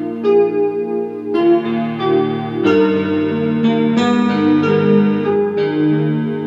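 Solo piano music: slow, held chords that change every second or so.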